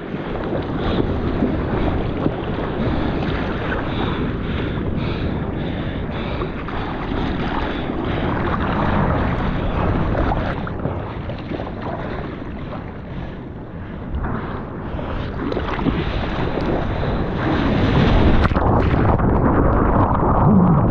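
Sea water sloshing and splashing around a camera held at the water's surface while a bodyboarder paddles, with wind buffeting the microphone. The water noise grows louder over the last few seconds as the camera is washed under in the shore break.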